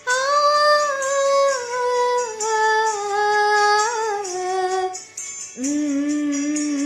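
Music: a slow Malayalam song, its single melody line over a light backing track. The melody falls in steps through a few held notes, dips briefly, then starts a new phrase about five and a half seconds in.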